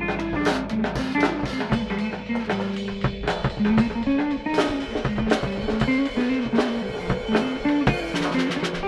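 Live instrumental jam: a plucked guitar line stepping through notes over a drum kit, with regular drum hits and cymbal crashes.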